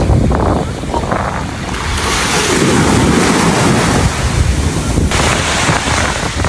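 Surf washing up on a sandy beach, with wind gusting on the microphone.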